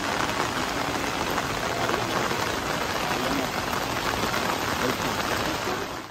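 Heavy rain pouring onto wet stone paving: a steady, dense hiss of falling rain.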